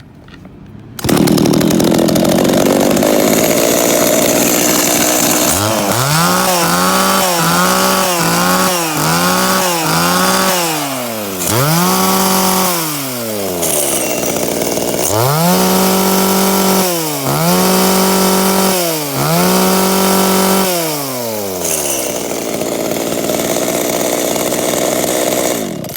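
Zenoah G300AVT two-stroke chainsaw engine running, coming in abruptly about a second in. It is blipped up to high revs and back about five times in quick succession, then revved and held at full throttle several times for a second or two each before settling back to idle.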